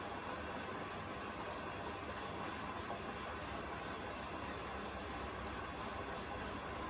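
Beko WTK104121A front-loading washing machine running mid-cycle. A rhythmic hiss comes about three times a second, starting suddenly, over a steady low running noise.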